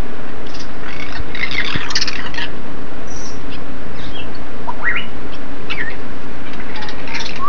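African grey parrots squawking and chirping, with a dense burst of calls in the first couple of seconds, two short rising whistles about halfway through and more squawks near the end, over the steady hiss of rain.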